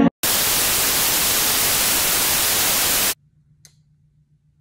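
A loud burst of white-noise static, about three seconds long, starting and cutting off abruptly, then a faint low hum.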